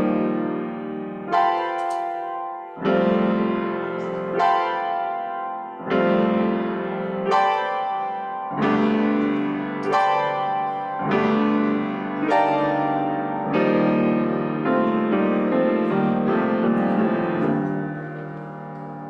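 Piano playing slow, sustained chords, a new chord struck about every second and a half, growing softer near the end.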